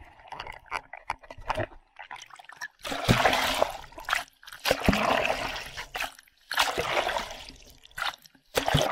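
Water splashing and sloshing around a small action camera as it moves in and out of the water surface, with three loud washes of noise about a second long each.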